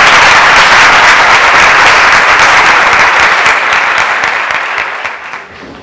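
Audience applauding, loud at first and dying away over the last second or two.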